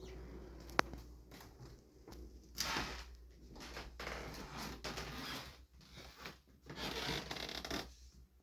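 Rustling and rubbing noises that come and go in several bursts, with one sharp click just under a second in.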